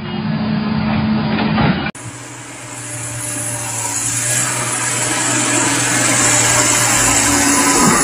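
Heavy machinery engine running with a rough, grinding noise. It cuts off abruptly about two seconds in and gives way to a steady low hum under a broad rush of noise that builds over the following seconds.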